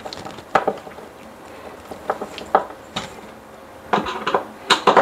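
Irregular knocks and clinks from handling a freshly wall-mounted medicine cabinet mirror, about half a dozen sharp taps with a quick cluster near the end, as its hold on the wall is tested.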